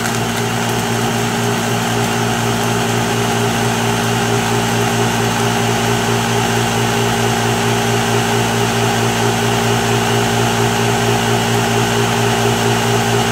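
Ninja Auto-iQ countertop blender motor running steadily on its Smoothie program, with a loud, even hum, blending a fruit-and-ice milkshake.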